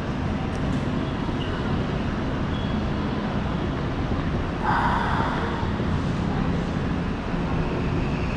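Steady rumble and noise of a busy railway station with trains running, with a brief hiss about five seconds in.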